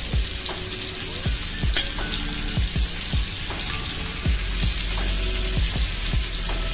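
Marinated chicken pieces sizzling and frying in hot melted butter on an iron tawa, stirred with a metal spoon, with one sharp click near the two-second mark. Background music with a beat plays underneath.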